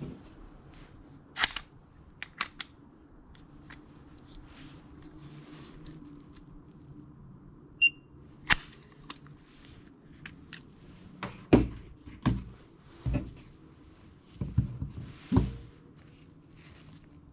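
Sharp plastic and metal clicks and knocks from fibre splicing hand tools, a Fujikura RS02 ribbon stripper and a fibre holder, being opened, snapped shut and handled, the loudest and most frequent in the second half. A short electronic beep sounds just before the middle.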